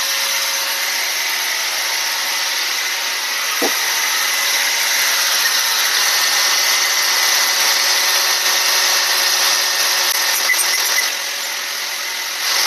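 Piston ring gap grinder grinding the end of a 5.3 LS piston ring: a steady, continuous abrasive grinding that eases slightly near the end. This is a ring being ground to set its end gap.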